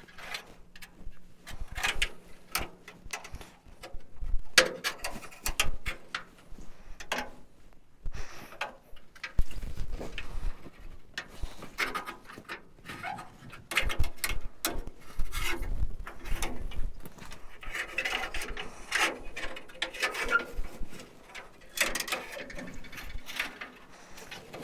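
Irregular metallic clicks, knocks and scraping as a steel fuel line is worked loose and pulled out through a truck frame, with short rattling clusters here and there.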